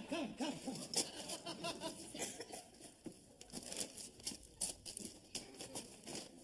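Rustling and crinkling of a carrier bag, with scattered light knocks and footsteps as shopping is carried and set about.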